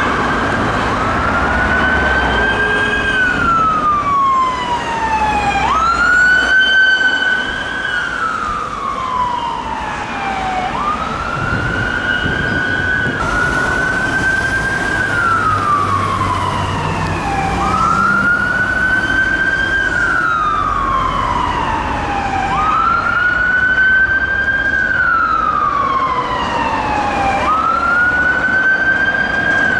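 UK ambulance siren on a slow wail, each sweep climbing quickly, holding briefly, then sliding down over a few seconds, about one cycle every four to five seconds. Road traffic rumbles underneath.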